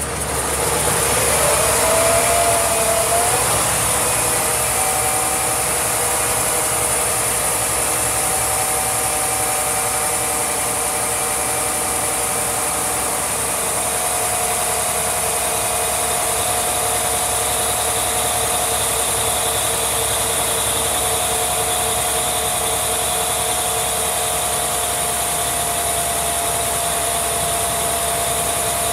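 Cummins N14 CELECT+ inline-six diesel engine idling steadily. A whine rises in pitch over the first few seconds, then holds steady.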